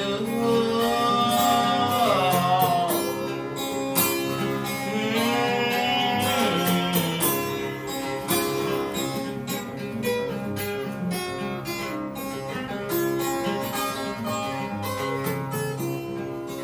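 Steel-string acoustic guitar strummed in a steady rhythm, playing an instrumental break between the verses of a slow folk-blues song.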